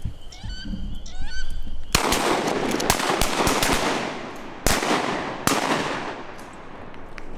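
A volley of shotgun blasts from several duck hunters firing at ducks over the decoys: a burst of shots about two seconds in, then further shots a few seconds later, each with a long echo. Before the shooting a few high bird calls are heard.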